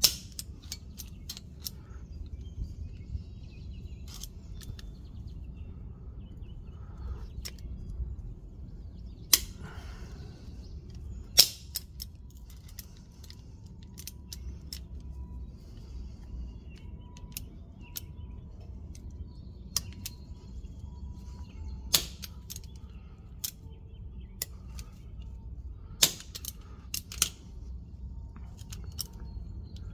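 Vise-Grip locking pliers snapping shut and being released again and again as a copper crimp-on terminal is squeezed down onto 4-gauge cable, tighter each time. The result is sharp metallic clicks every few seconds, with a handful of louder snaps, over a low steady hum.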